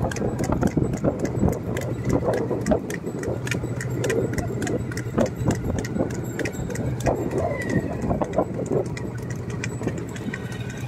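Bull cart rolling along a paved road: frequent, irregular clicks and knocks from the bull's hooves and the cart's frame and wheels, over a steady low hum.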